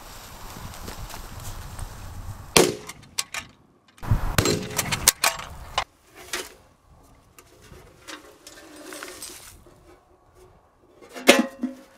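A lit firecracker fuse hissing, then a single sharp bang about two and a half seconds in as the firecracker goes off in a steel ammunition can. Metal clanks and clatter follow as the dented can and its lid are picked up and handled, with one louder ringing clank near the end.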